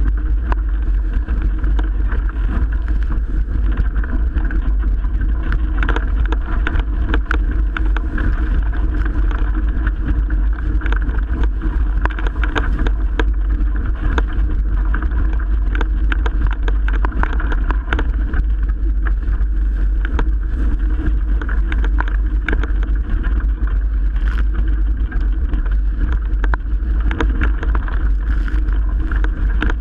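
Strong wind buffeting the microphone and water rushing past a Melges 24 sailboat sailing hard in 30+ knot wind, with many small knocks and splashes scattered through.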